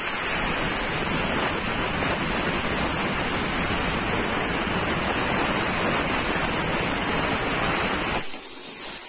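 Resanta IPR-40 inverter plasma cutter cutting through a rusty steel angle bar: a steady loud hiss of arc and compressed air with a high whistle over it. About eight seconds in the arc cuts off and only a thinner high hiss of air carries on, the torch's post-flow cooling after the cut.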